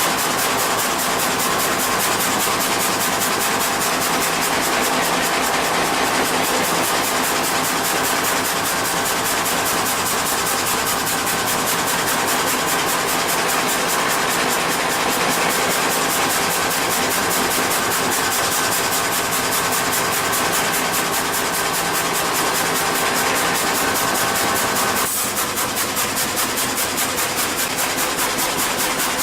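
Sawmill machinery running steadily: a dense mechanical hum with several steady tones. The sound changes abruptly near the end.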